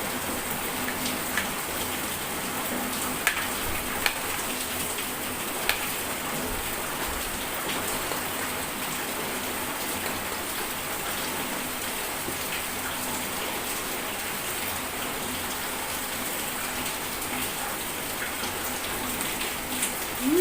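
Steady rain falling, an even hiss throughout, with a few sharp clicks about three, four and six seconds in.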